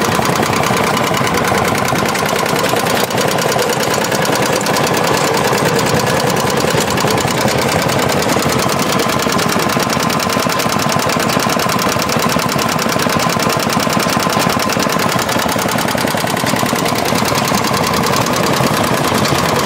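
1957 Mead Mighty Mouse mini dozer's Wisconsin air-cooled engine running steadily at one speed, its exhaust a fast, even train of pops.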